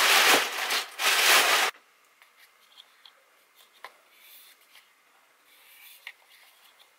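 Crumpled brown packing paper rustling loudly as it is pushed about in a cardboard box, for under two seconds, then cutting off suddenly; after that only a few faint clicks.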